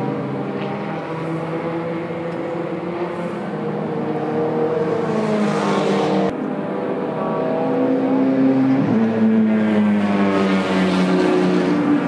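Toyota Alphard and Vellfire minivans driving slowly past one after another, their engines droning steadily, with tyre and engine noise swelling as each van comes close, once near the middle and again near the end.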